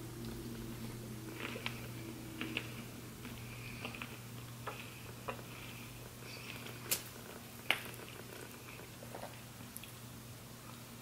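Close-up eating sounds of crab legs and shrimp being chewed, with scattered sharp clicks and cracks, the loudest two at about seven and eight seconds in, over a steady low hum.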